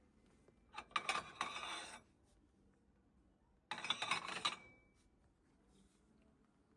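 Two short bursts of rustling, scraping handling noise, each about a second long: one about a second in, the other near the middle.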